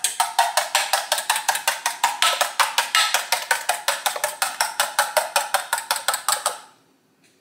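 Fork beating a raw egg in a stainless steel bowl: quick, even clinks of the tines against the metal, about six a second, stopping about six and a half seconds in.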